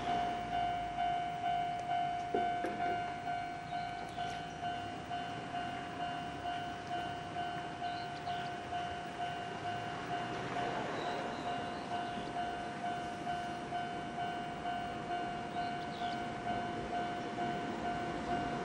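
Railway level-crossing warning bell ringing steadily, a repeated single-pitched clang about two strokes a second. It is the crossing's warning that a train is approaching with the barriers down.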